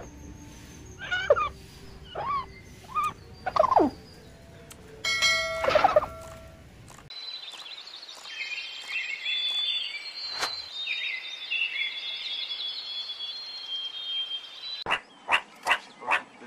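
Animal and bird calls. A few short chirps come in the first seconds, then birds singing over a steady hiss, then a quick even run of short sharp calls, about three a second, near the end.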